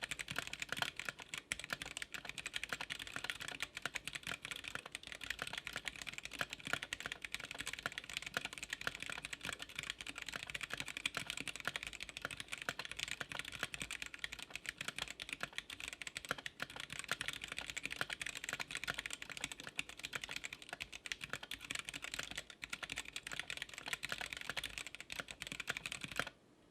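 Fast, continuous typing on a GamaKay K61 60% mechanical keyboard with stock, unlubed Gateron Yellow linear switches, a dense run of key clacks that sound a little higher pitched than usual. The typing stops abruptly near the end.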